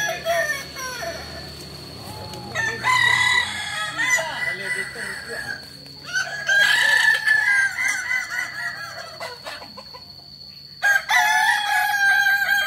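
Several kukuak balenggek roosters crowing in turn, a West Sumatran breed whose crow runs in many stepped tiers; each long crow breaks into a chain of short rising-and-falling notes. The crows come in bouts that overlap, starting about three seconds in, about six and a half seconds in, and again near the end.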